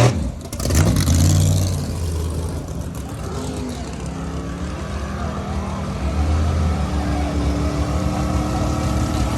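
Car engine revving loudly, its pitch stepping up and down in the first second or so, then running at a steady pitch that gets somewhat louder from about six seconds in.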